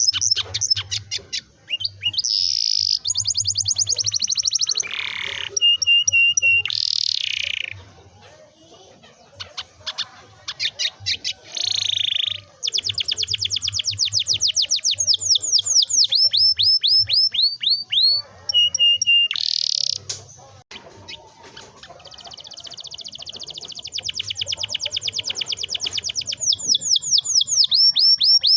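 Canary singing long rolling trills: fast runs of repeated high notes, many sweeping downward, broken by short held whistles. The song drops to a lull about a third of the way in and again after two-thirds.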